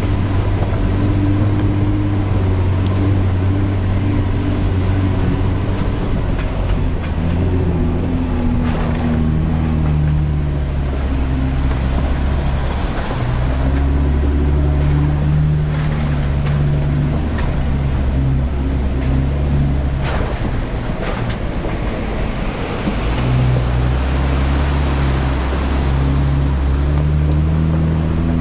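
Jeep Wrangler engine running at low revs while crawling a gravel trail, its note stepping up and down with the throttle over steady tyre and road noise, with a few short knocks from the rough ground.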